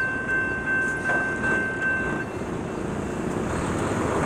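A long train of cars rolling past with a steady rumble. A high steady ringing tone over it stops about two seconds in.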